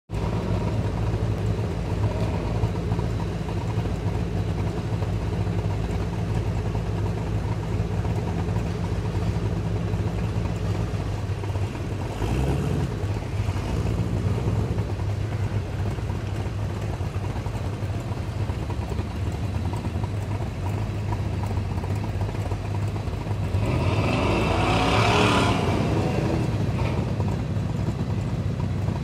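Off-road rock-crawler buggy engines running steadily at low revs, with one engine revving up louder for a couple of seconds near the end.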